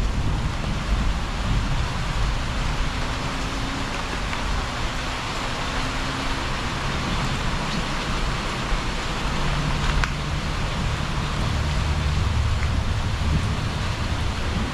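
Summer storm: strong wind and heavy rain, a steady rushing hiss with a low rumble underneath.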